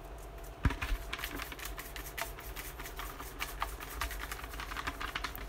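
Folded paper slips rattling and scraping in a plastic jack-o'-lantern pail as it is handled and moved: a quick, irregular run of small clicks with a sharper knock early in.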